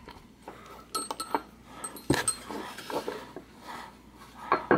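Small metal parts clinking and clicking on a wooden workbench as a steel socket and the knocked-out ratchet nameplate and bushing are handled. A few scattered light clicks, with a sharper one about two seconds in.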